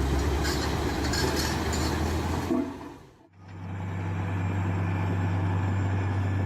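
Heavy construction machinery engine running with a rough noisy sound, fading out about two and a half seconds in; after a short silent gap a second heavy engine runs with a steady low hum.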